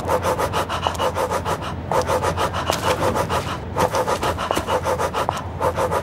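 Rapid rhythmic rattling scrape, about nine clicks a second, in short phrases that repeat evenly roughly every two seconds over a steady low drone: a percussive soundtrack.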